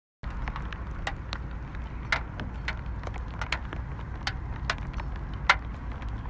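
Scattered light raindrops ticking irregularly on a clear plastic food-box lid near the microphone, one sharper tick about five and a half seconds in, over a steady low hum.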